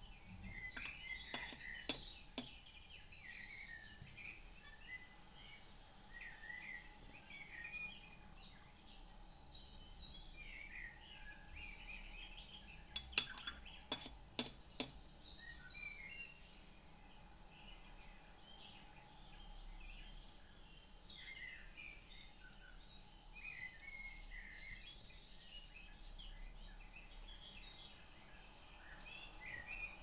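Birds chirping and singing continually in the background, with a few sharp clinks around the first two seconds and a quick cluster of them around the middle.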